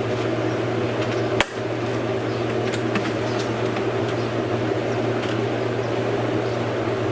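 Steady motor hum, like a fan running, with one sharp click about a second and a half in and a few faint light clicks.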